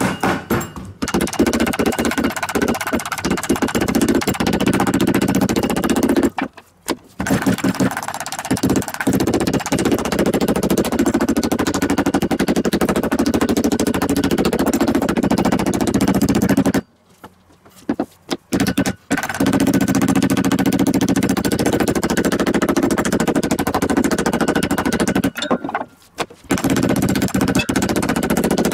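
Metal meat tenderizer pounding a flattened pork neck on a wooden cutting board: rapid, steady blows in long runs, with three short pauses, tenderizing and flattening the meat for a rolled roast.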